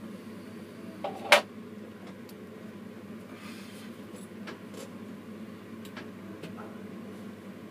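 Steady low hum inside a tower crane's cab, with a sharp double click a little over a second in and a few faint ticks after it.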